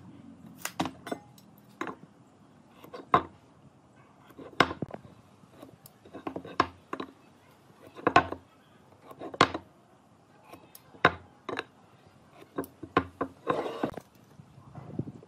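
Sharp clicks and light knocks from a metal tape measure and a metal square being set down and moved on a pine beam and wooden workbench, about one every second or so. A short rustling scrape comes near the end.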